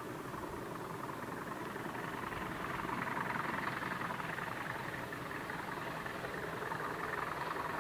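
Diesel locomotive hauling coaches as it approaches, its running growing louder from about three seconds in.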